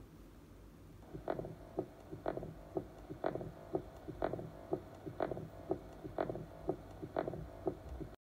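Recorded heart auscultation sounds of mitral stenosis, played through a tablet speaker. A heartbeat about once a second starts about a second in, each beat a loud sharp sound followed by a softer one.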